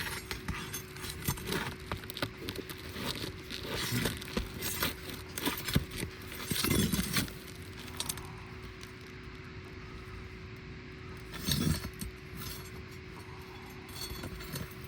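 Asphalt roof shingles being pried up and handled, scraping and crinkling with many small clicks and clinks. The sounds are busiest in the first half, ease off, then a louder scrape comes a little before the end, over a faint steady hum.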